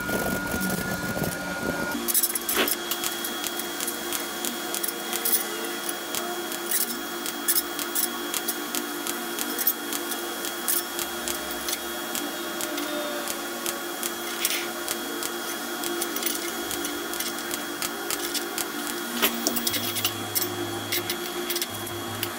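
Light metallic clicks and taps as a thin stainless-steel part is handled on a steel welding table, over a steady workshop hum. For the first two seconds there is a softer rubbing sound from an abrasive pad on the sheet.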